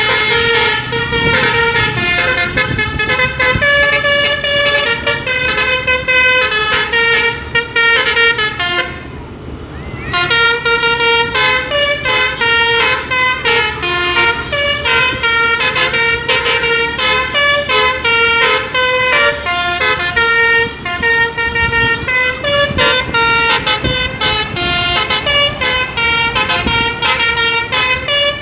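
Basuri telolet bus horn playing a fast tune of short, stepped notes, breaking off for about a second some nine seconds in before the tune resumes.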